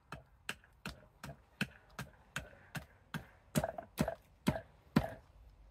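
Carving axe (Fadir Tools 860 g) chopping into a green ornamental cherry spoon blank on a chopping block: a steady run of short chops, about three a second, the loudest in the second half, ending about five seconds in.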